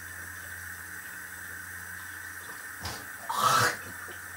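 A steady low hum and hiss, then about three seconds in a short, loud spit into a kitchen sink while brushing teeth.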